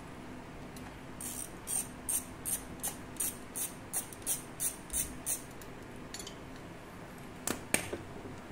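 A hand ratchet worked in short strokes on the bolts of a scooter's stator, about a dozen quick clicking runs at roughly three a second, then two sharp metallic knocks near the end.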